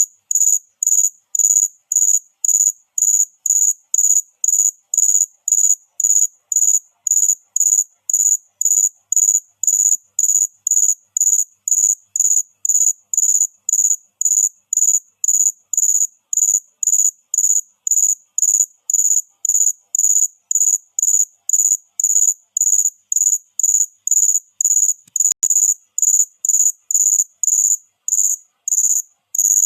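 Cricket chirping: a steady run of short, high-pitched chirps, about two a second, evenly spaced.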